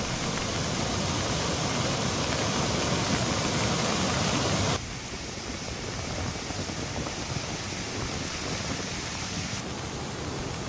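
Rushing floodwater: a river in spate pouring over a weir, a steady rush of noise that drops abruptly to a quieter rush a little under halfway through.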